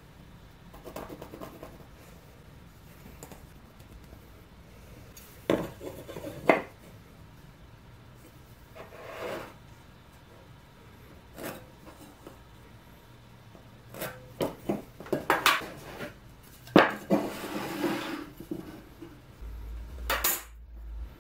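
Marking out on a workbench: a steel ruler and metal square set down and shifted with light metallic clinks, a wooden block knocked and moved on the bench top, and a pencil scratching along the ruler. The sounds come as short, irregular clicks and rubs, busiest in the second half.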